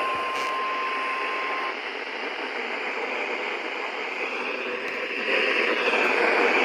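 A steady single-pitch tone that cuts off about a second and a half in, leaving radio static: an even hiss that swells near the end.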